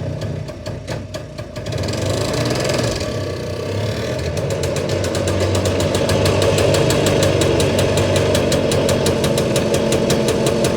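Scootacar microcar's two-stroke engine running with a regular firing beat, just started on its new choke cable and plug lead. About two seconds in the beat falters, then the revs rise, and from about four seconds it runs steadily faster and louder.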